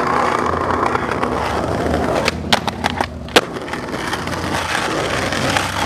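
Skateboard wheels rolling on concrete. About two seconds in comes a quick run of sharp clacks of the board on the ground, and then it keeps rolling.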